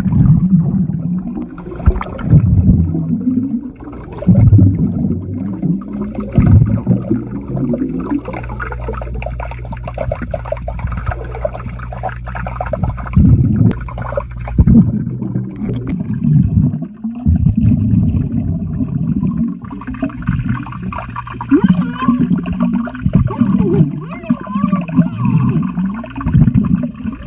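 Muffled underwater sound from a camera submerged in a swimming pool: bubbling and gurgling water with muffled, low voice sounds in irregular surges.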